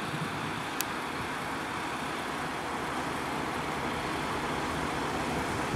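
Steady drone of KiHa 40-series diesel railcars idling while they stand at a station platform, with one brief high tick about a second in.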